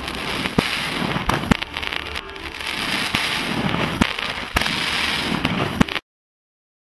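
Fireworks going off: a dense crackling hiss broken by sharp bangs at uneven intervals. It cuts off suddenly near the end.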